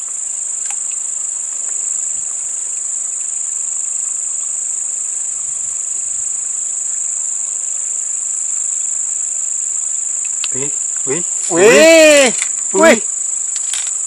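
Steady, high-pitched insect chorus that holds one unbroken pitch, with a man's brief exclamation near the end.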